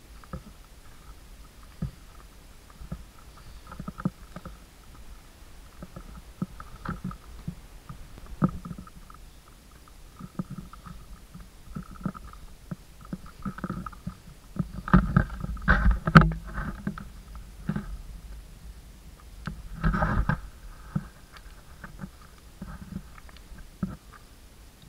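Footsteps on a stony trail: irregular crunches and knocks of boots on loose rock, over low rumbling handling noise from the carried camera. Two louder spells of scuffing and knocks come about fifteen and twenty seconds in.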